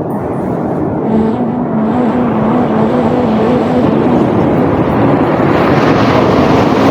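Sea waves washing in continuously, one swelling and rushing louder near the end, with soft sustained music notes underneath.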